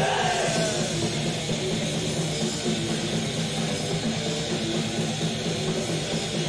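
Thrash metal band playing live: distorted electric guitars and drum kit in a dense, steady wall of sound.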